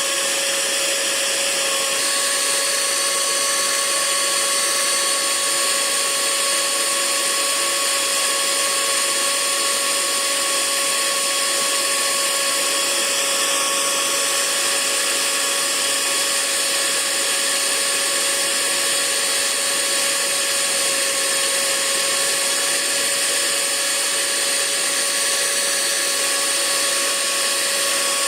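Hair dryer running steadily: a constant rush of air with a steady motor whine, whose tones shift slightly about two seconds in.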